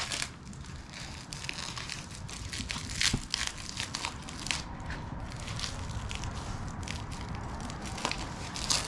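Packing wrap on a professionally wrapped table being pulled and torn open, crinkling and crackling irregularly, with louder crackles about three seconds in and near the end.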